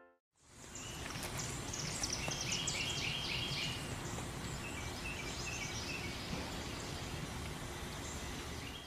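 Outdoor ambience: a steady background hiss with small birds chirping in quick repeated runs, busiest about two to three seconds in. It cuts off abruptly at the end.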